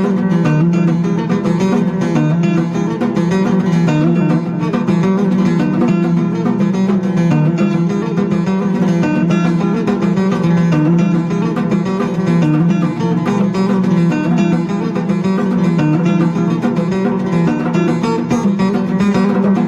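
Background music led by acoustic guitar, plucked with a quick, busy rhythm.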